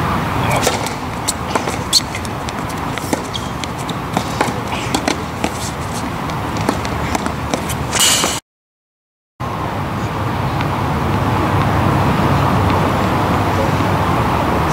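Steady outdoor background rumble with scattered light clicks and knocks over the first eight seconds. The sound cuts out completely for about a second just past the middle, then the steady rumble returns.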